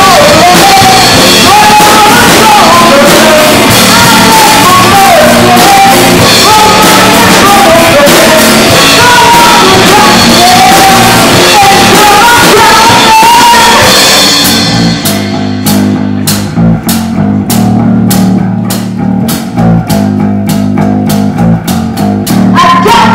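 Live rock band playing loud: a singer's voice over electric guitar, bass guitar and drum kit. About fourteen seconds in the singing stops and the band drops to a quieter break of bass and guitar notes with steady drum hits, then the full band comes back in just before the end.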